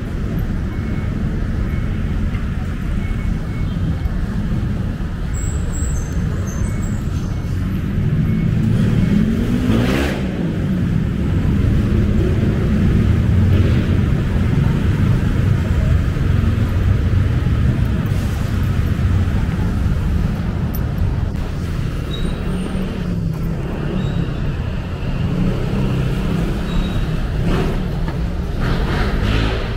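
Road traffic: a steady low rumble of passing vehicles. About ten seconds in, one vehicle passes close with its engine note rising.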